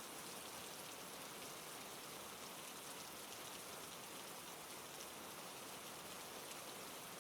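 Steady, soft rainfall ambience: an even hiss of rain with faint patter of drops.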